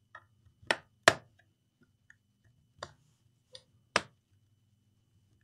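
Plastic retaining clips of an Asus TUF FX505 laptop's bottom cover snapping loose as the case is pried open: about five sharp clicks at uneven intervals, the loudest about a second in and near the end.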